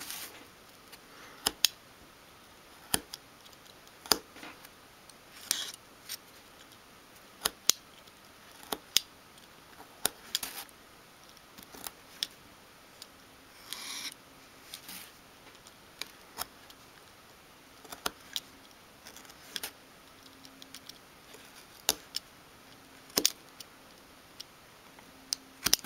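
Craft knife blade cutting into a thin sheet of wood: a string of sharp, irregular clicks and a few short scratchy scrapes as the tip scores and nicks out small sections along the edge.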